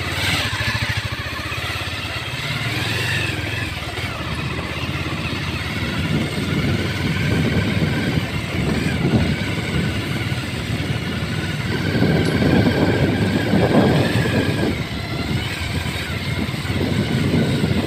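Motorcycle engine running steadily while being ridden along a rough dirt road, with the sound surging louder around two-thirds of the way through.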